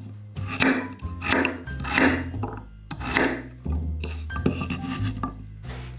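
Kitchen knife slicing through peeled taro onto a wooden cutting board: four strong cutting strokes in the first three and a half seconds, then lighter ones, over background music with a steady bass line.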